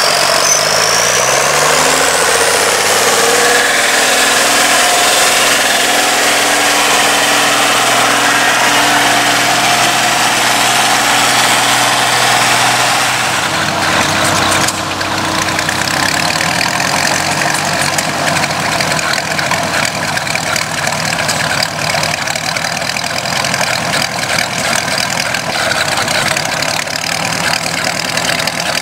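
An engine speeds up over the first few seconds, then runs steadily. About thirteen seconds in, its note changes and it runs on steadily.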